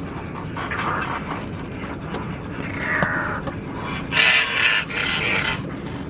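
Seabirds calling with harsh, rasping cries, weaker at first and then two louder calls about four and five seconds in.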